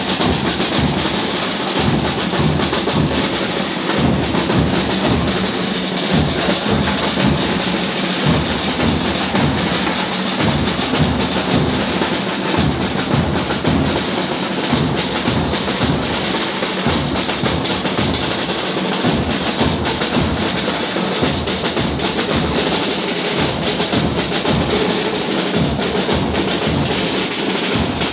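Many large bass drums of an Ashura mourning drum band beaten together in a loud, continuous rhythm.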